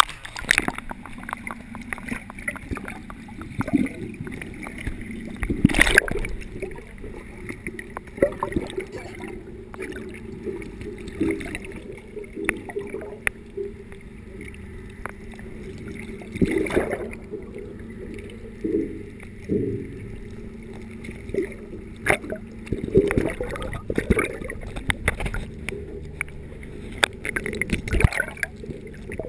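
Water sloshing and gurgling around a GoPro camera in its waterproof housing as it moves at and just below the surface. The sound is muffled, with a low rumble and frequent sharp clicks and knocks.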